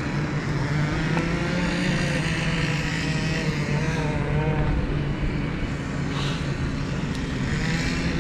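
Electric trolling motor of an Old Town Sportsman AutoPilot 120 kayak humming steadily, a faint higher whine wavering in pitch as it holds the kayak in place.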